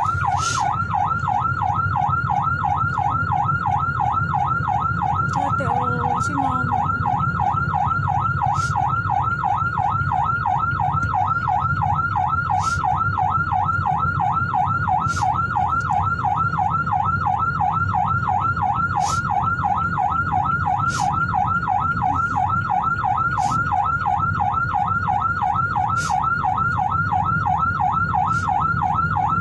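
Ambulance siren in a fast yelp, sweeping up and down about four times a second without a break, heard from inside the ambulance over the low rumble of the vehicle on the road.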